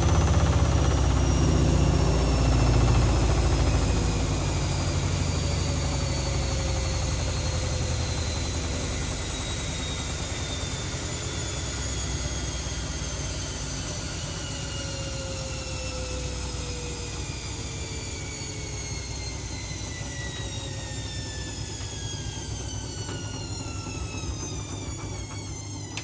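Zanussi ZWF16070W1 washing machine's drum spinning down: the motor whine falls steadily in pitch while the low rumble of the drum fades away.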